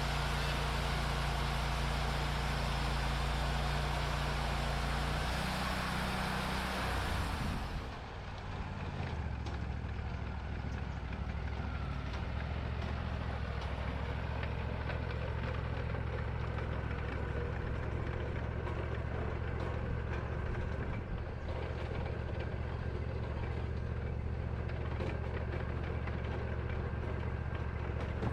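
Wood-Mizer LT40 band sawmill with its engine running steadily and the band blade cutting through a hickory log, a loud hissing rasp. The cutting noise stops sharply about eight seconds in, and the engine keeps running alone.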